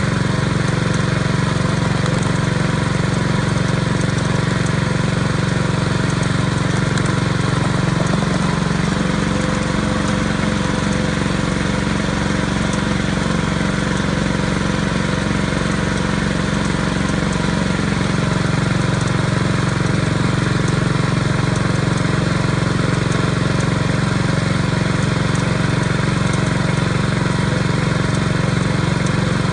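A small engine running steadily, its note shifting slightly between about 8 and 18 seconds in.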